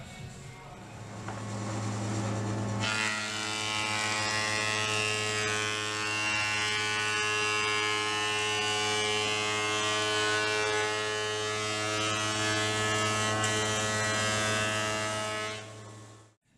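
Thickness planer running. A low motor hum, then from about three seconds in the louder, even whine and rush of the cutterhead as a hardwood board feeds through. It cuts off suddenly near the end.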